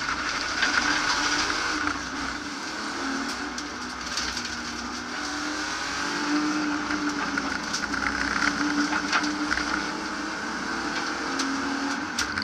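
BMW E36 328i's 2.8-litre straight-six under hard acceleration from a standing start, heard inside the stripped race car's cabin. It comes in suddenly at full throttle, and its note rises and falls several times as the car is driven hard.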